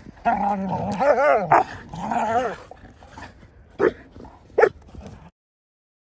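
Dogs play-fighting: drawn-out, wavering play growls and yowls, then two short sharp barks about four seconds in. The sound cuts off suddenly near the end.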